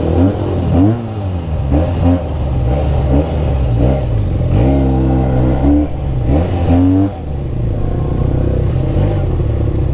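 Benelli sport motorcycle's engine blipped through several throttle revs while rolling slowly, its pitch rising and falling each time, with the longest rev about halfway through. The sound is what the rider calls a legendary exhaust note.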